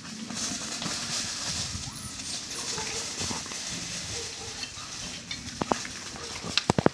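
Wild boar sows scuffling and chasing on dry, leaf-littered ground: hoof steps and rustling litter, with a few sharp knocks near the end.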